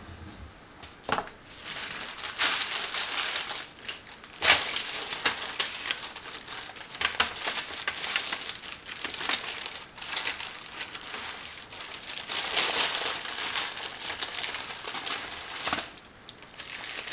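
Sheets of paper and plastic cling wrap crinkling and rustling in irregular bouts as a raw pork loin is wrapped and its foil pan covered.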